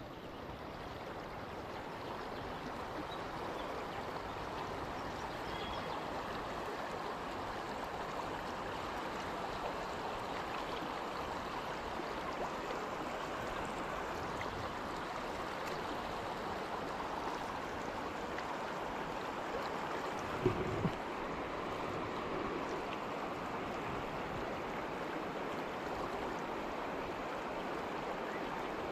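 River water rushing steadily over a shallow rocky bed, with one brief knock about two-thirds of the way through.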